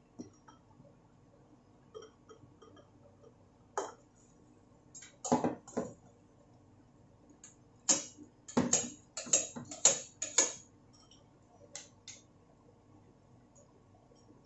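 Metal spoon clinking and scraping against a stainless steel frying pan and a ceramic bowl as noodles and broth are served out. The clinks come in scattered groups, with a busy run past the middle.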